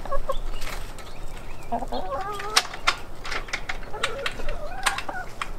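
Domestic hens clucking in several drawn-out calls that bend in pitch, with a few sharp clicks and knocks in the second half.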